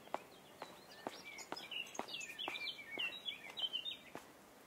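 A songbird singing a busy phrase of quick chirps and warbles from about a second in until near the end, over steady footsteps at about two steps a second.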